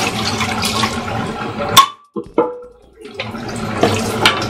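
Kitchen tap running into a stainless steel sink as dishes are rinsed under it. A sharp clink comes a little under two seconds in, the water sound drops away for about a second, and then it runs again.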